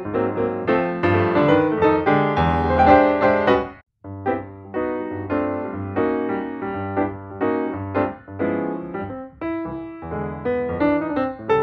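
Background piano music, a steady run of notes that breaks off for a moment about four seconds in and then picks up again.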